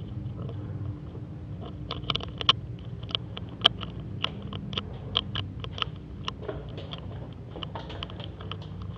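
Irregular sharp clicks and taps, coming thick and uneven from about two seconds in, over a steady low hum.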